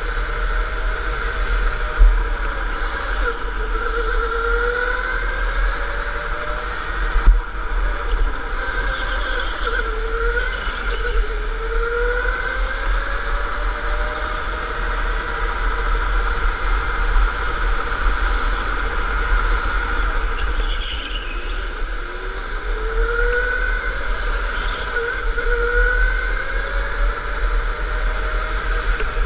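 Electric go-kart motor whining, its pitch climbing again and again as the kart accelerates and dropping back into the corners, over a steady low rumble heard from on board the kart. Two sharp knocks, about two seconds in and about seven seconds in.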